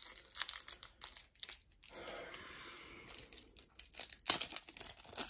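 Foil wrapper of a 1991 Pro Set golf card pack crinkling and tearing as it is twisted and ripped open by hand. The crackling is sparse at first and gets busier and louder from about three seconds in.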